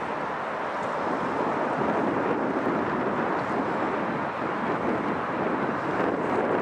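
Airbus A380 on final approach with gear down, its four jet engines giving a steady rushing noise that grows louder about a second in as the aircraft nears.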